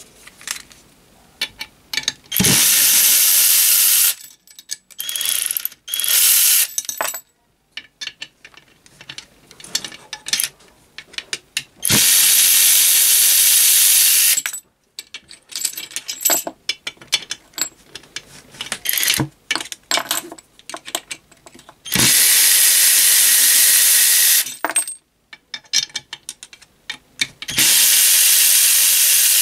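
An 18-volt cordless right-angle ratchet wrench with a 3/8-inch drive spins nuts off a steel fixture plate in five runs of one to two and a half seconds. Between runs there are sharp clicks and clatter as the socket is moved from nut to nut and the nuts come free.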